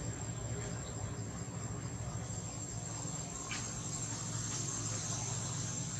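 Insects, crickets or cicadas, calling in a steady high-pitched drone over a low steady rumble, with a faint brief chirp about three and a half seconds in.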